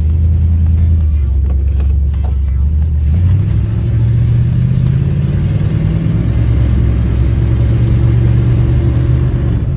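1955 Cadillac Series 60 Fleetwood's V8 running as the car drives, heard from inside the cabin. About three seconds in, the engine note rises a little and then holds steady as the car picks up speed.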